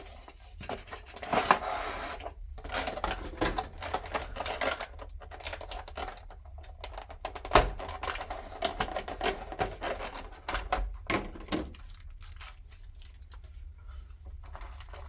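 Cardboard and packaging handled while a die-cast model airliner is unboxed: irregular clicks, taps and scrapes with rustling, the sharpest clicks about a second and a half in and again about halfway, quieter handling toward the end.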